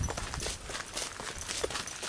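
Footsteps of a hiker walking on a sandy dirt and gravel track, at a steady pace of about two steps a second.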